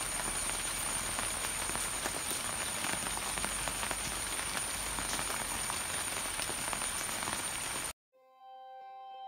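Rain falling steadily on dense foliage: a continuous hiss dotted with the ticks of single drops, with a thin, steady high whine over it. About eight seconds in, it cuts off abruptly. After a brief silence, soft ambient music with sustained, ringing singing-bowl-like tones begins.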